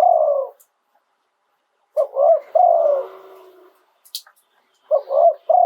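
Spotted dove cooing: phrases of two short coos followed by a longer, falling coo, repeating about every three seconds.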